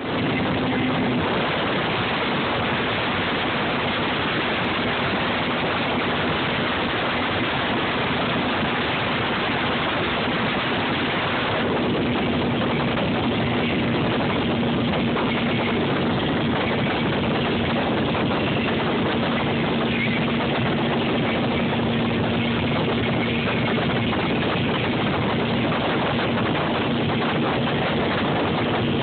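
Motorboat running steadily at speed, its engine giving a constant drone under a dense rush of wind and water noise.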